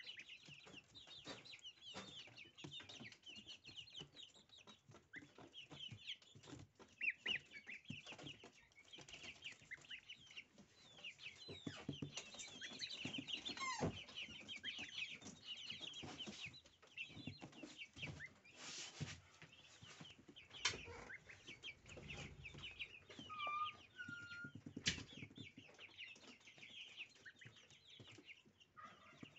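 Several goslings peeping continuously in quick, high chirps while they peck and tear at a bunch of fresh dill, with many short soft clicks from their bills on the stems.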